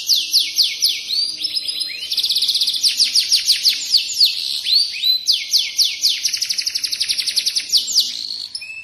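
Domestic canary (kenari F1) singing a long, unbroken song of rolling trills: runs of rapid repeated downward-sweeping notes. Some runs are very fast and others slower, and they change from phrase to phrase without a pause.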